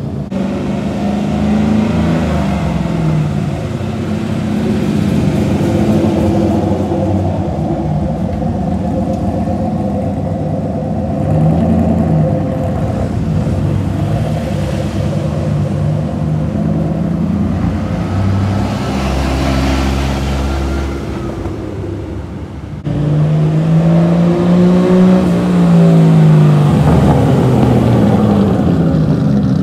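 Engines of several cars driving out one after another, with revving. About three quarters of the way through it jumps to a louder car whose revs climb and fall repeatedly.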